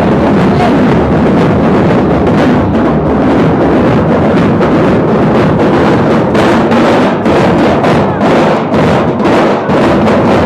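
Several large double-headed drums beaten together in a loud, steady rhythm.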